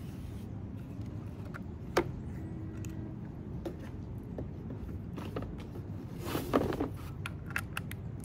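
Plastic clicks and knocks from a hose spray nozzle and its Salt Away mixing bottle being handled and fitted together: one sharp click about two seconds in, scattered lighter clicks, and a short cluster of knocks at about six and a half seconds, over a steady low rumble.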